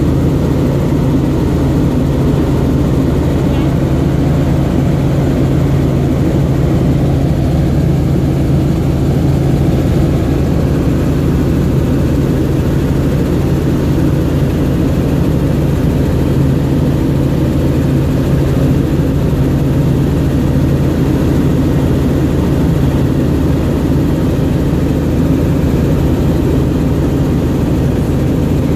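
Helicopter in flight, its rotor and engine running at a steady drone with a strong low hum, heard from inside the cabin.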